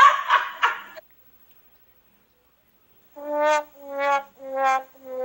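Sad trombone meme sound: three short brass notes, each a little lower than the one before, then a fourth, lower note that begins near the end and is held.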